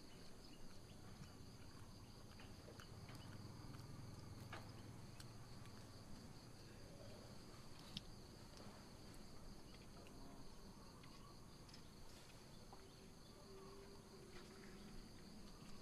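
Faint outdoor ambience: insects droning steadily at a high pitch, with a few soft clicks.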